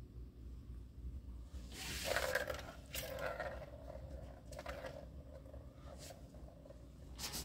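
Plastic balls rolling and rattling in the circular tracks of a three-tier tower-of-tracks cat toy as a cat bats at them. There is a longer rolling run about two seconds in, then a few shorter rattles and clicks.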